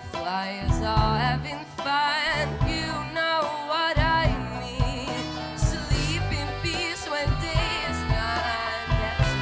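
A woman singing with wide vibrato and long held notes into a microphone, backed by a live band with drums and bass.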